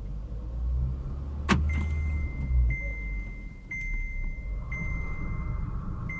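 VW Polo Sedan heard from inside the cabin, engine running in gear with the jacked-up left front wheel spinning freely: a low rumble, a click about one and a half seconds in, then a steady high whine coming in short repeated stretches. This is the left front hub bearing, the side that does not hum.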